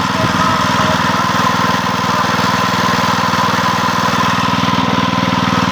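A small engine running steadily at a constant speed, with no change in pitch.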